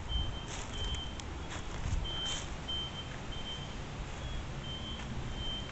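Short high-pitched electronic warning beeps repeating at uneven intervals, over a low rumble, with a few sharp clicks in the first couple of seconds.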